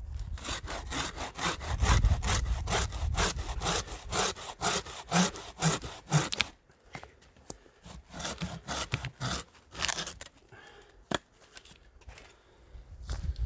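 Hand saw cutting through wood in quick, even strokes, about three a second, stopping about six seconds in; after that, a few scattered knocks and one sharp click.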